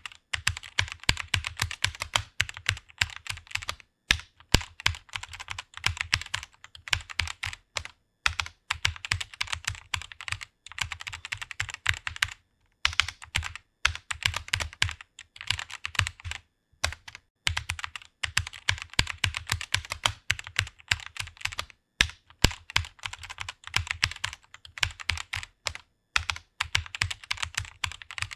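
Fast typing on a computer keyboard: rapid runs of key clicks with brief pauses between bursts.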